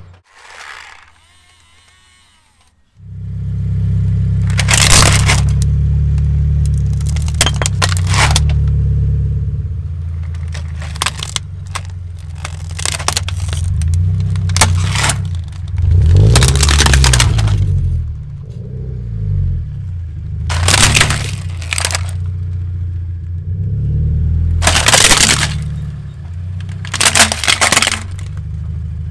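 A car's engine running at low revs, rising and falling slightly, as its tyre rolls over and crushes a plastic toy vehicle, with repeated sharp cracks and snaps of the plastic breaking. The engine comes in about three seconds in, after a short near-quiet stretch.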